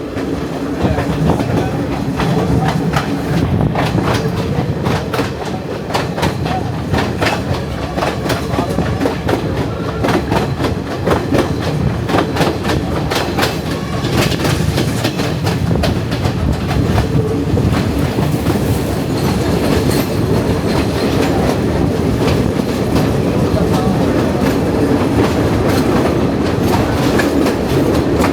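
Passenger train in motion, heard from aboard: a steady rumble of wheels on rail with a clickety-clack of wheels over the rail joints. The clacks come thick and fast through the first half, then thin out.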